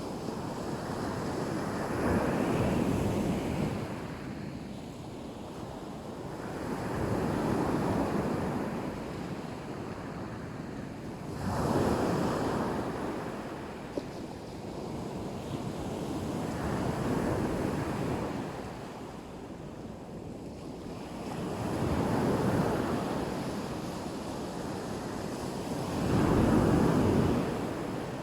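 Black Sea surf: waves breaking one after another about every four to five seconds, each wash swelling and then fading away.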